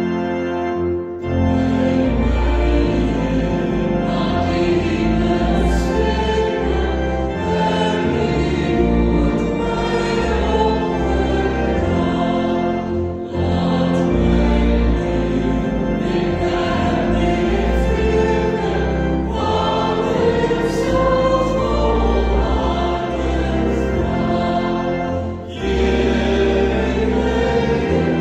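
Two women and a man singing a worship song together into microphones, over an accompaniment with a steady low bass, with short breaks between phrases.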